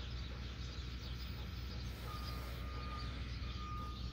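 Golden retriever panting while resting, over a steady low rumble. A thin, steady high tone comes in about halfway and breaks off a few times.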